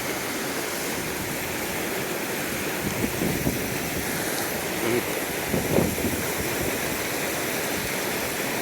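River water rushing steadily, with a few brief louder sounds about three, five and six seconds in.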